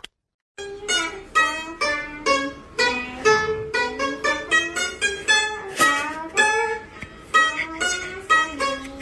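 A Chinese plucked lute playing a quick melody of single plucked notes, about three a second, each ringing briefly; it starts about half a second in.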